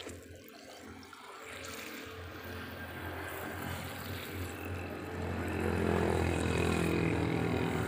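Water pouring in a thin stream into the open cells of a motorcycle lead-acid battery, filling it to rinse out rust and sediment. The sound grows steadily louder, with a low steady hum coming in about two seconds in and strengthening in the second half.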